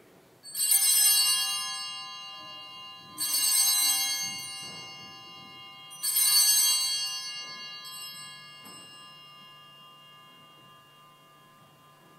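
Altar bells struck three times, each ring leaving a bright, many-toned shimmer that fades slowly, the last dying away over several seconds. They are rung at the elevation of the consecrated host.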